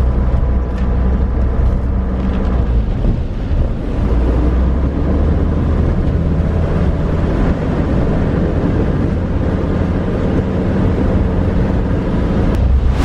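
Car being driven on a wet road, heard from inside the cabin: a steady engine and tyre rumble with road noise. Music with a beat comes in right at the end.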